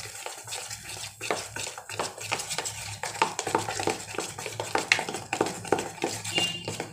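Dhokla batter being beaten by hand in a steel bowl just after Eno fruit salt and water have gone in: a quick, irregular run of wet slaps and squelches, with light knocks against the bowl.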